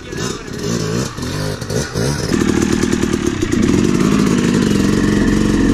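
Two-stroke Yamaha dirt bike engine, uneven and choppy at first. About two seconds in the throttle opens and it runs loud and steady as the bike pulls away, its pitch climbing a little a second or so later.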